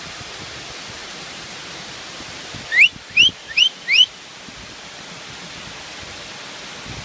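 Waterfall rushing steadily, with a bird calling four quick rising whistled notes about three seconds in.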